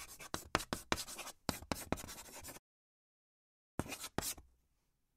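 Marker scratching in quick writing strokes, a run of strokes that stops, then after about a second another short burst near the end.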